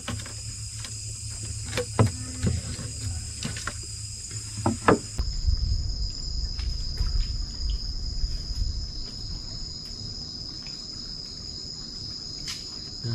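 Steady, high-pitched chorus of night insects, with a few sharp knocks in the first five seconds.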